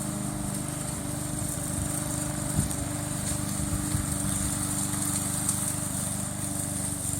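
Remote-control lawn mower running steadily over rough ground, with a few brief knocks about two and a half, four and five and a half seconds in.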